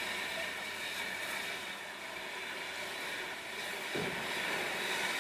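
Steam locomotive LMS Jubilee 4-6-0 45596 Bahamas standing in steam on a turntable, giving a steady hiss, with a single thump about four seconds in.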